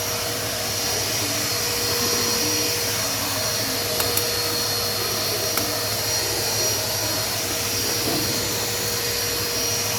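Vacuum cleaner running steadily with a steady hum and a high whine, sucking up feathers and dirt from a pigeon loft floor; a few sharp clicks come near the middle.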